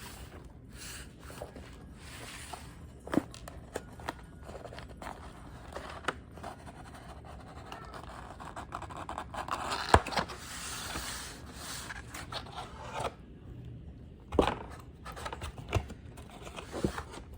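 Cardboard and plastic packaging of a freshly unsealed baseball card set being handled and opened by hand: scraping and rubbing with scattered clicks and taps, the sharpest about ten seconds in.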